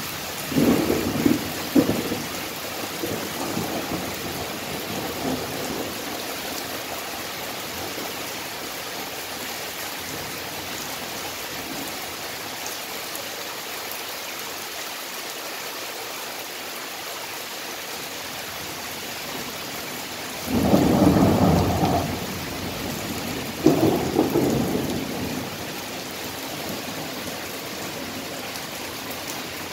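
Thunderstorm with steady rain hissing throughout. A peal of thunder with a few sharp cracks about a second in rumbles away over the next few seconds, and two more loud rolls of thunder come about 21 and 24 seconds in.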